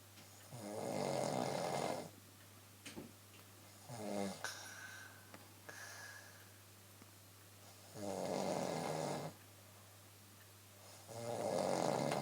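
A woman snoring in her sleep: three loud, rasping snores a few seconds apart, about a second in, around the two-thirds mark and near the end, with softer breathing snorts between them.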